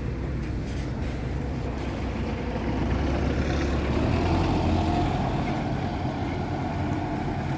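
Single-deck bus engine running as the bus pulls past close by, the low rumble swelling to its loudest around the middle and then easing a little, with a faint whine near the middle.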